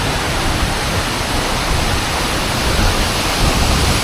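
Steady rushing roar of a waterfall, water crashing onto rocks.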